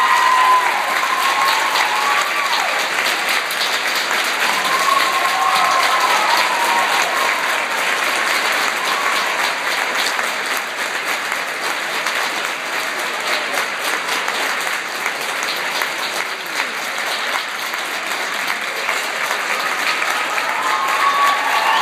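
Large audience applauding steadily, with a few voices calling out over it now and then.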